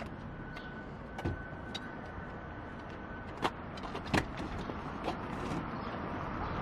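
A road bike being manoeuvred into a station wagon's boot: a few short knocks and clatters of frame and wheels against the car, the loudest about four seconds in, over steady background noise.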